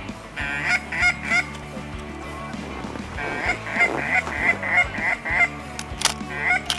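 Honking waterfowl calls: three short honks, a pause, then a run of about eight evenly spaced honks at roughly three a second, and two more near the end. Two sharp clicks come near the end.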